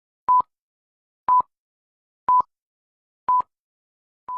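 Short, steady-pitched electronic beeps, one each second, with silence between them, like a countdown or click-track tone.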